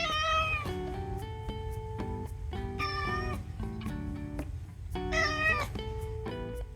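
A cat meowing three times in long, drawn-out calls, over background music with plucked notes.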